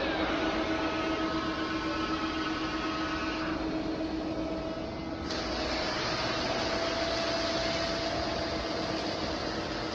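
CNC bridge-type machining center running during hole machining, with a steady whine made of several tones. About five seconds in, a steady hiss comes in suddenly.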